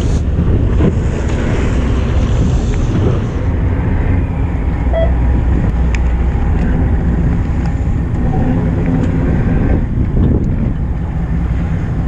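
Fishing boat's engine running steadily, with wind buffeting the microphone.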